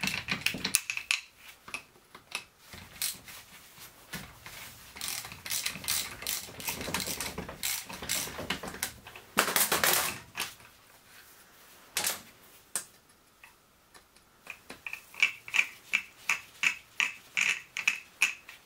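Hand ratchet wrench working the bolts on the cylinder of a Yamaha XT600 single-cylinder engine. There are scattered knocks and metal rattles, then a steady run of ratchet clicks, about three or four a second, near the end.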